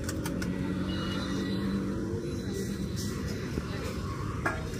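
Steady low rumble of busy street background noise with faint voices, and a few light clicks, the clearest about four and a half seconds in.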